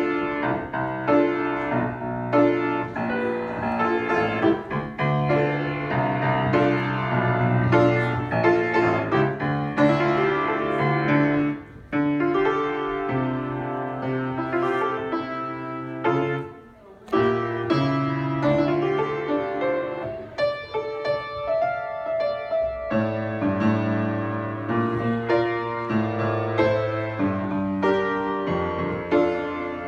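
Acoustic grand piano played solo: a continuous run of notes with held bass notes under a higher melody, breaking off briefly twice, about 12 and 17 seconds in.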